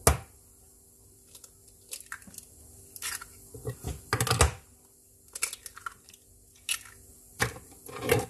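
Raw eggs being cracked open one after another into a mixing bowl: a string of sharp taps and crunches of eggshell, irregularly spaced.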